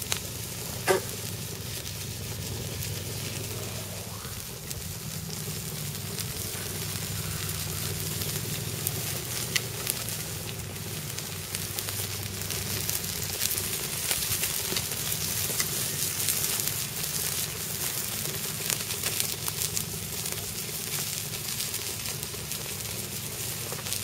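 Chicken pieces sizzling and crackling on a wire grill grate over hot coals, with a steady hiss and many small pops of spitting fat. A single sharp click about a second in.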